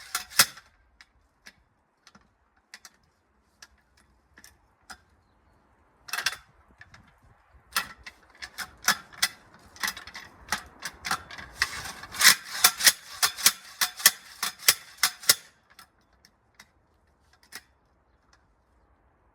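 Sliding post hole diggers digging a hole: a run of sharp clicks and clacks, sparse at first, coming thick and fast between about 8 and 15 seconds in, then thinning out again.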